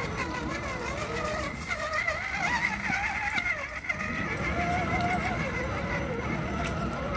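Electric motor and gearbox of an RC crawler truck whining as it drives through a shallow rocky stream, the pitch wavering up and down with the throttle over a low rumble.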